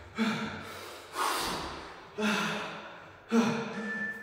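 A man's forceful breaths with the effort of dumbbell floor-to-sky reps: four of them about a second apart, each starting sharply and trailing off.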